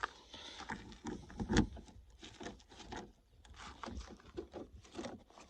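Valet key being jiggled and turned in a 2002 Buick Park Avenue's door lock cylinder, a run of faint, irregular clicks and rattles, one a little louder about a second and a half in.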